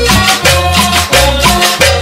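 Cumbia music: a steady bass line and sustained melodic tones over a fast, even shaker-like percussion rhythm.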